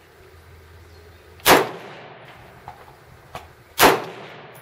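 Two shots from a scoped AR-style semi-automatic rifle fired off a bench rest, a little over two seconds apart, each followed by a short echo.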